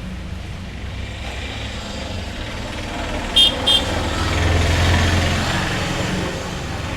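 Road traffic: a vehicle horn toots twice in quick succession about halfway through, then a vehicle's engine rumble swells and fades, over a steady low hum.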